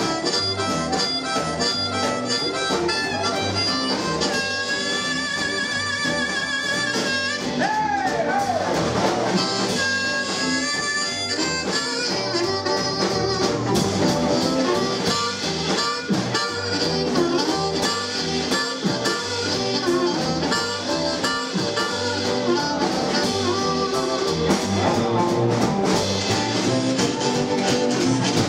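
Live blues band: a blues harp played through a microphone carries the lead with held, wavering notes and bends, over drums, upright double bass and electric guitar.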